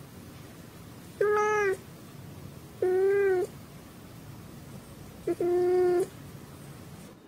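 A domestic cat meowing three times, about a second and a half apart. Each meow is short, about half a second, and holds a fairly even pitch with a slight rise and fall.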